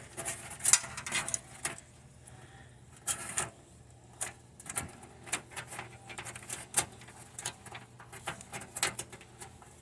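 Irregular clicks, taps and rustles of cables and plastic power connectors being handled and fed into a computer case, with a faint steady low hum underneath.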